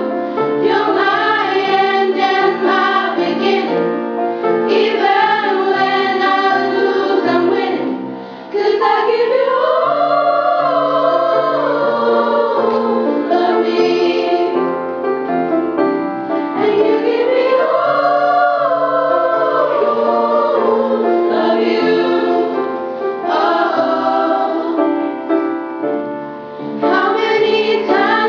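School choir of girls' voices singing together, held notes in long rising and falling phrases.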